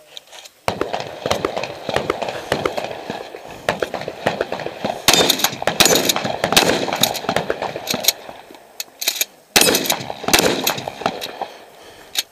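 Shotgun fire and handling clatter during an IPSC shotgun stage: a rapid, dense run of sharp cracks starting about a second in, breaking briefly about nine seconds in, then resuming.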